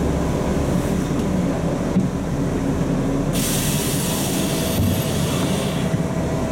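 Steady low rumble of a Volzhanin-5270 city bus running, heard from inside. About halfway through, a sharp hiss of released compressed air starts suddenly and fades out over a couple of seconds.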